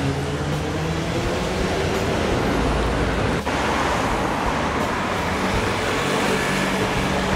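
Road traffic on a city street: cars and a motor scooter driving past close by, a steady mix of engine hum and tyre noise, broken by a short dip about three and a half seconds in.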